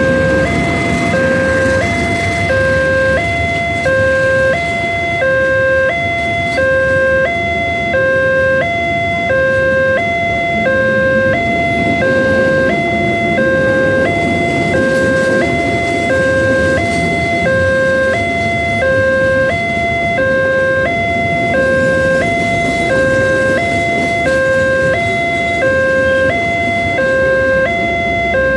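Level-crossing warning alarm from the loudspeaker on the crossing post, sounding a steady two-note chime in which a higher and a lower tone alternate about every half second. Under it is the rumble of a passenger train rolling past, heaviest at the start as the CC 206 diesel locomotive goes by, then carrying on as the coaches follow.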